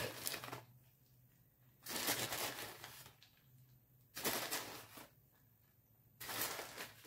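Plastic bag of grated cheese rustling and crinkling in four short bouts about two seconds apart as a hand reaches in for cheese.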